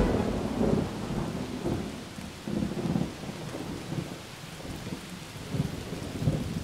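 Steady rushing hiss of water with irregular low rumbles swelling and fading every second or so.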